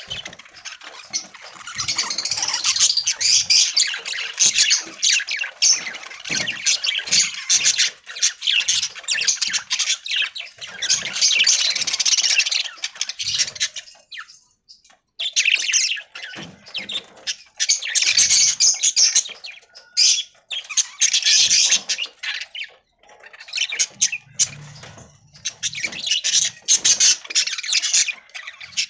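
A flock of budgerigars chattering and squawking in rapid, dense bursts, with two short pauses along the way.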